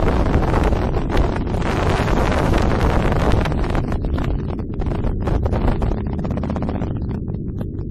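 Wind buffeting the microphone of a camera riding on a moving motorcycle, over the low rumble of engine and road noise. The rush thins out somewhat near the end.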